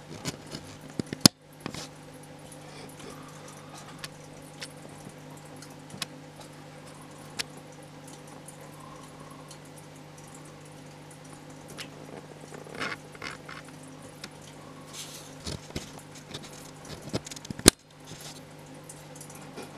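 Small aquarium filter running with a steady low hum and light water trickling, with scattered small ticks and two sharp clicks, one about a second in and one near the end.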